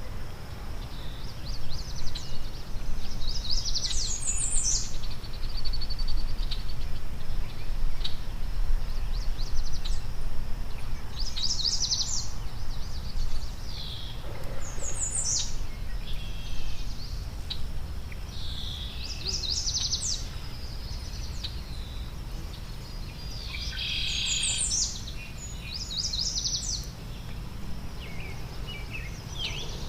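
Wild songbirds singing, short phrases of rapid high notes repeated every few seconds, over a steady low outdoor rumble.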